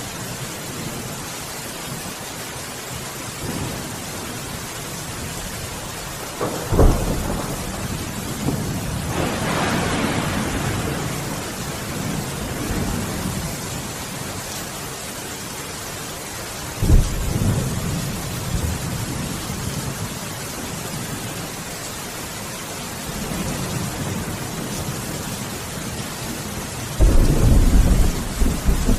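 Thunderstorm: steady rain, with thunder cracking sharply about seven seconds in and rolling on, another crack about halfway through, and a loud, close rumble near the end.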